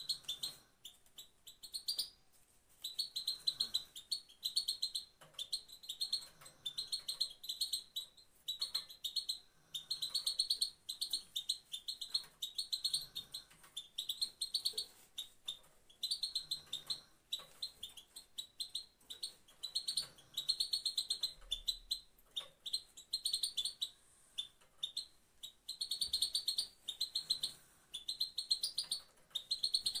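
Female European goldfinch giving the rapid 'pat-pat' call: bursts of fast, high chattering notes about one to two seconds long, repeated with short pauses. It is a female's call that keepers play to stir a male goldfinch into condition and song.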